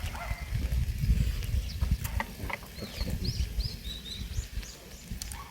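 Close-miked chewing and mouth sounds of someone eating. Short bird chirps come in about three to four seconds in.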